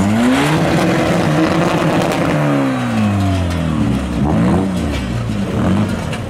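BMW E36 Compact's engine revving hard during a burnout. The revs climb at the start, hold high for about two seconds and fall away, then come back as several short blips near the end.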